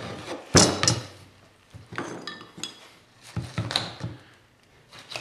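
A whitetail deer's lower jaw being forced and snapped away from the skull at a table's edge: two sharp cracks about half a second to a second in, then scattered lighter knocks and clicks.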